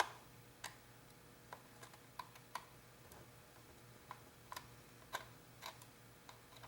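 Light, irregular clicks and taps of long-nose pliers and a small screw being worked into a cuckoo clock case, about nine clicks at uneven spacing over a faint steady hum.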